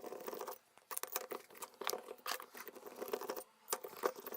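Small metal parts of a model nitro engine being handled, making a run of light, irregular clicks and rattles.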